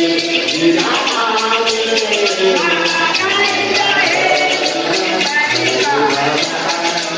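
Voices singing a hymn with shakers keeping a steady beat.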